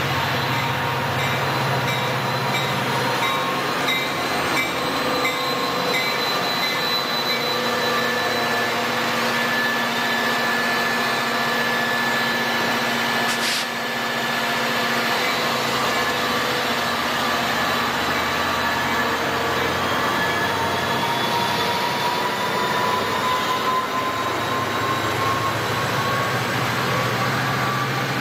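Amtrak passenger train moving past a station platform: a diesel locomotive and its passenger cars give a steady rumble, with thin metallic squealing tones over it, one of them rising slowly near the end. A single sharp click comes about halfway through.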